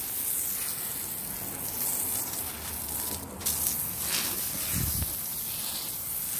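Garden hose spraying water onto wood-chip mulch and a concrete paver, a steady hiss, to soak the soil over freshly buried food scraps.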